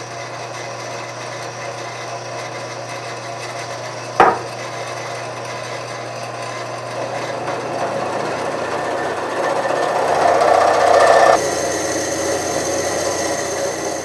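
Drill press running, its bit grinding through a gas pipe, over a steady motor hum. A sharp click about four seconds in; the cutting grows louder from about eight seconds and drops suddenly about eleven seconds in.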